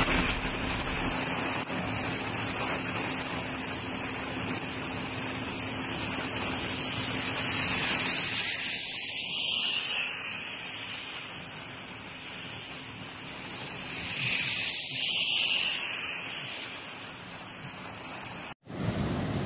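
Heavy rain hissing steadily on a road, with tyres swishing over wet tarmac as cars pass, the sound swelling twice, about halfway through and again a few seconds later.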